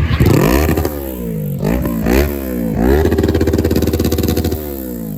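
Kawasaki ZX-10R inline-four engine on its stock exhaust revving, the pitch rising and falling sharply several times, then held high for over a second before dropping about four and a half seconds in.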